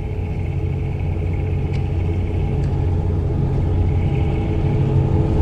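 Fishing boat's engine running steadily with a low rumble that grows slightly louder, and two light clicks about two seconds in.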